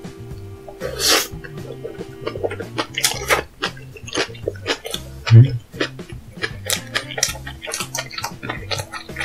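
Close-miked eating sounds: wet chewing and slurping with many sharp mouth clicks, over background music with a steady bass line. A short hiss comes about a second in, and a heavy low thump a little past the middle is the loudest sound.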